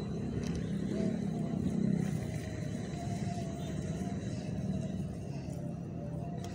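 A motor vehicle engine rumbling steadily, swelling a little about one to two seconds in, with a faint wavering whine above it.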